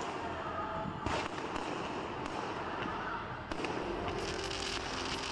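Aerial fireworks going off: sharp bangs about a second in and again about three and a half seconds in, with smaller pops between them over a steady background hum.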